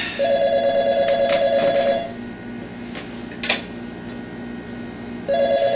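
Telephone ringing twice, each ring a rapid bell trill of about two seconds, with a sharp knock between the rings.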